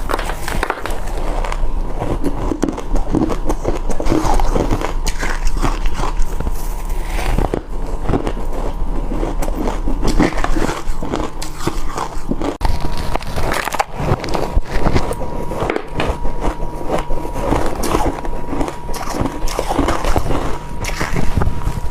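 Close-up crunching of crushed and shaved ice being bitten, a dense, irregular run of crisp crunches.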